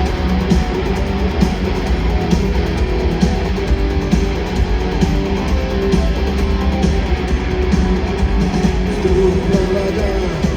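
Live rock band playing an instrumental intro: guitars and a steady drum beat over a heavy, booming bass, loud.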